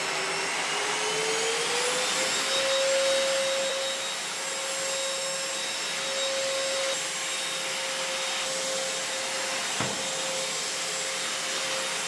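Redmond RV-UR356 cordless stick vacuum cleaner running on its high-power second speed, its motor rising in pitch over the first two seconds as it comes up to full power, then holding a steady hum and whine while the floor brush is pushed over a door mat. A brief click comes near the end.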